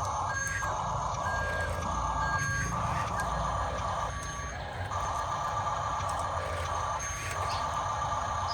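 Reversing beeper on a 1:16 scale RC dump truck's sound unit, sounding repeated short beeps over a low engine rumble, with a hissing noise that cuts in and out every second or so.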